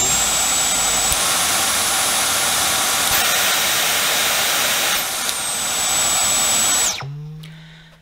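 Dyson V10 cordless stick vacuum's motor running with a high whine over a steady rush of air. About a second in the whine steps up in pitch as the power setting is raised, and it drops back about five seconds in. Near seven seconds the motor is switched off and its whine falls away.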